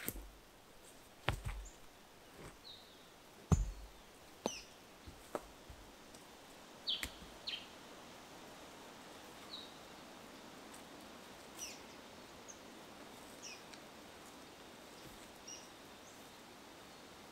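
Stones knocking as they are lifted and set down while a rock fire ring is moved, a handful of knocks in the first six seconds, the loudest about three and a half seconds in. Small birds chirp in short, high calls throughout.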